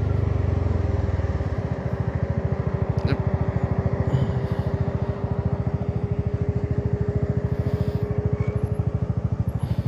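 Honda Forza 300 scooter's single-cylinder four-stroke engine idling through an aftermarket exhaust freshly repacked with glass wool. It settles about a second and a half in into a steady, even low pulse.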